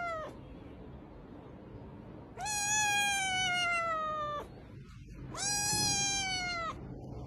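Grey tabby kitten meowing: two long, high, drawn-out meows that each slide slowly down in pitch, about two seconds and a second long, with the tail of a third right at the start.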